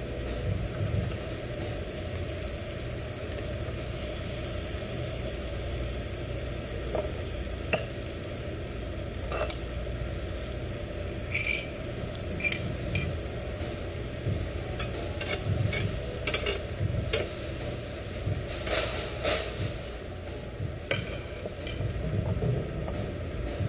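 Marinated meat sizzling on a tabletop yakiniku grill, with scattered clicks of chopsticks and metal tongs against the grill grate, thickest in the middle stretch, over a steady low hum.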